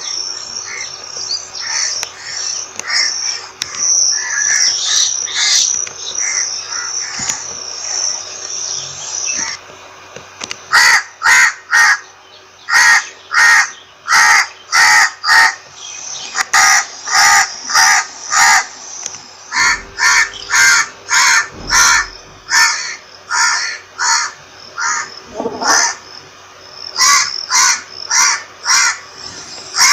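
Several crows cawing. At first the calls overlap in a dense chorus; from about ten seconds in comes a run of loud, separate caws in quick groups, two or three a second.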